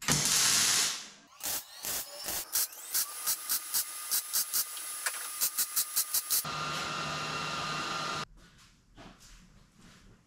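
Welding on a stainless exhaust manifold: a second of hiss, then a string of short tack-like pulses about three a second, then a steady buzzing weld run that cuts off sharply about eight seconds in.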